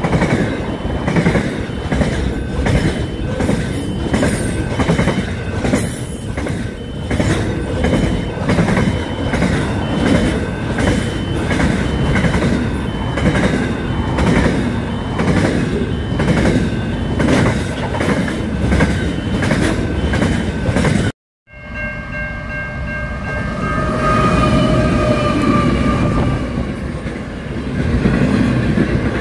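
Container freight train wagons passing at speed, wheels clattering over the rail joints in a steady rhythm, with a faint repeating high ding behind. After a cut about 21 s in, another freight train passes with a long multi-note train horn that sags slightly in pitch.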